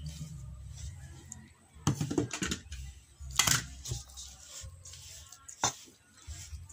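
Spoon scraping and knocking against a stainless steel mixing bowl as cookie dough is stirred by hand: a few sharp clacks, the loudest about three and a half seconds in, over a low steady hum.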